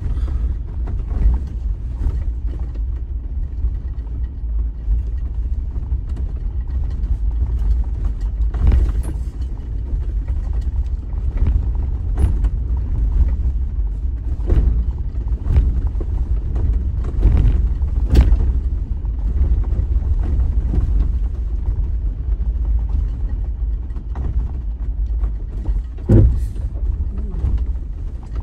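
Inside the cabin of an off-road vehicle driving over a rocky dirt track: a steady low rumble of engine and tyres, with a handful of sharp knocks as it jolts over rocks.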